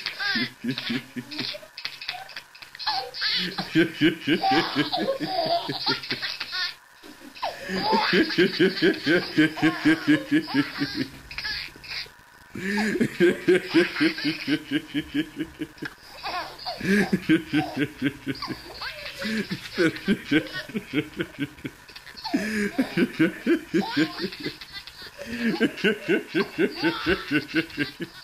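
A man laughing in long fits of rapid, goose-like laughs that follow one after another with short pauses, with a baby laughing along.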